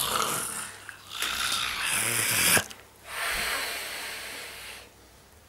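A person making a scary noise with the breath: two long, breathy, hissing wheezes, the first cut off sharply about two and a half seconds in, the second trailing away.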